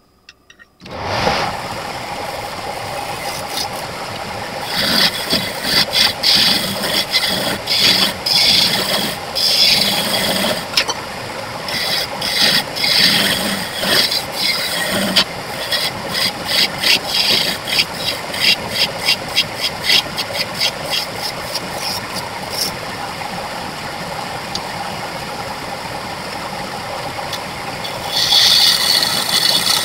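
Wood lathe starting up about a second in and running steadily, with a turning tool cutting the spinning wooden blank in rapid, repeated scraping strokes that grow louder near the end.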